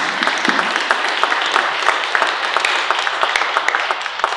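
Audience applauding: many hands clapping densely, beginning to die away near the end.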